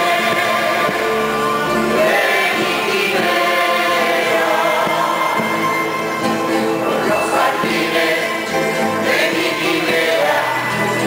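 Canarian parranda folk group singing in chorus, men's and women's voices together, accompanied by strummed acoustic guitars, a double bass and other small plucked string instruments.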